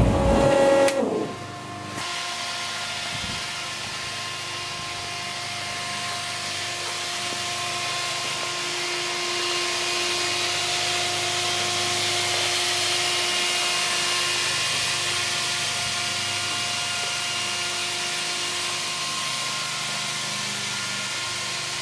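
Plymouth Barracuda's 426 race Hemi engine stopping about a second in, its sound falling in pitch as it dies away, followed by a steady hiss with a faint hum.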